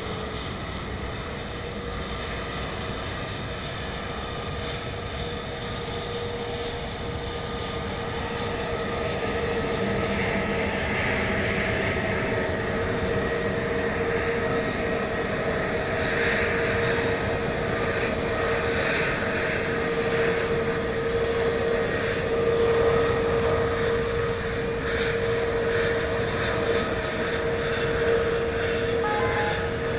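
Airbus A320 airliner's jet engines at taxi power, a steady whine with several held tones over a rushing hiss, growing louder about a third of the way in as the plane comes closer.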